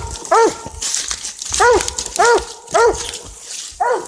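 Coon dog barking treed at a raccoon: five short barks at an uneven pace, each rising then falling in pitch.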